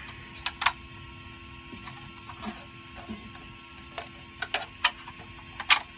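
A 3D printer's stepper motors whine steadily while it prints, with a few sharp clicks and knocks of hard printed plastic parts being handled. The clicks come twice near the start and several times near the end, and they are the loudest sounds.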